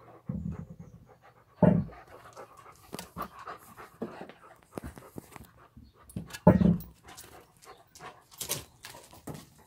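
A dog panting, with many short clicks and two loud thumps, about two seconds in and again about six and a half seconds in.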